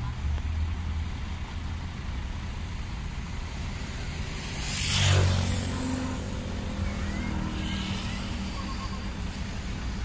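Hino 500 dump truck's diesel engine running steadily while its raised tipper body is lowered. About halfway through, a loud rushing whoosh swells and fades over about a second.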